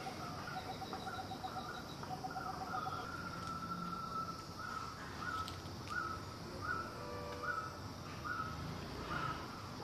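Quiet outdoor ambience: birds calling, with a run of short, slightly rising chirps repeated about every half second in the middle and fainter trilling earlier, over a steady high hiss.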